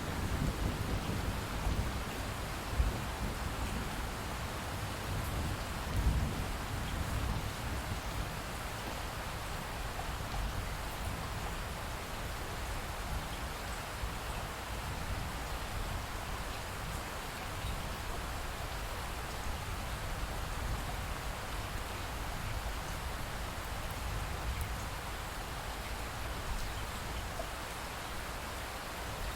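Steady rain falling, with low rumbles of thunder in the first several seconds that fade away, leaving only the rain.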